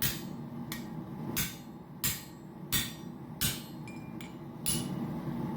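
Hand hammer striking a steel drift to stretch a punched hole in hot titanium: about seven blows, roughly one every two-thirds of a second, each with a short metallic ring, over a steady low hum.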